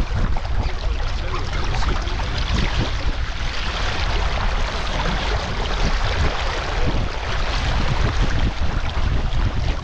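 Wind buffeting the microphone over the steady rush and splash of water along the hull of a Wanderer sailing dinghy beating upwind.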